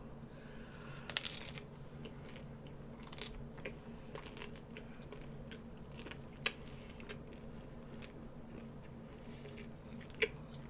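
A person quietly chewing and biting food close to the microphone, with faint scattered crunches and mouth clicks. There is a small cluster of them about a second in and sharper single clicks near the middle and near the end, over a low steady hum.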